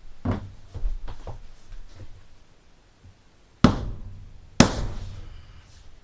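Hammer blows seating the ends of vinyl click-plank flooring: a few lighter knocks in the first second and a half, then two hard strikes about a second apart near the middle.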